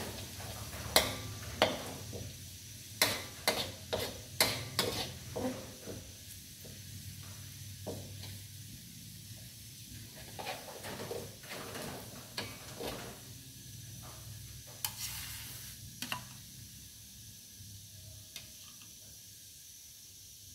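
Minced garlic sizzling in hot oil in a metal wok while a metal spatula stirs it, scraping and knocking against the pan in quick strokes. After about thirteen seconds the strokes thin out and the quiet sizzle carries on alone as the garlic browns.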